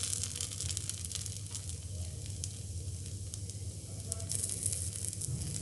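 Batter sizzling in oil in a greased appe (paniyaram) pan on the stove, a steady hiss with fine crackles, a little louder near the start and again near the end, over a low steady hum.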